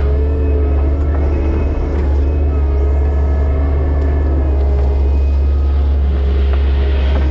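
Kubota SVL90-2 compact track loader's diesel engine running steadily under work, a deep drone with a thin steady whine over it.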